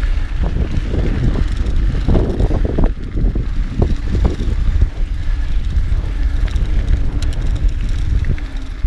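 Mountain bike rolling over a dirt trail: irregular rattles and knocks from the bike over rough ground, with wind rumbling on the camera microphone.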